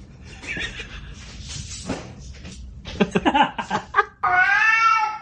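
A cat meowing, ending in one long meow of about a second near the end.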